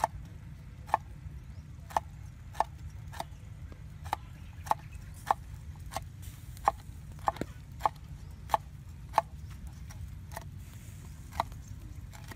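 A cleaver chopping on a wooden cutting board: a run of sharp, evenly spaced knocks, about one or two a second, with a short pause near the end. A steady low rumble sits underneath.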